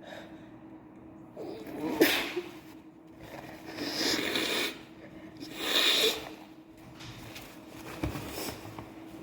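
A woman sneezing again and again, with noisy breaths between. The sharpest sneeze comes about two seconds in, longer ones follow around four and six seconds, and a smaller one comes near the end.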